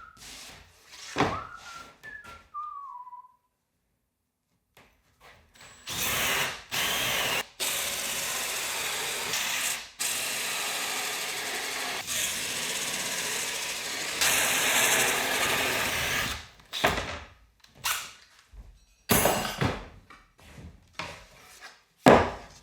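A power drill boring big holes through a tub template, running in long stretches with short stops, after a few whistled notes at the start. A run of knocks and clatters follows, the loudest near the end.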